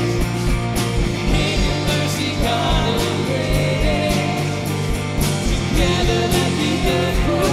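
Live worship band playing a rock song with drums, guitars, bass and keyboard, and a man singing the lead vocal.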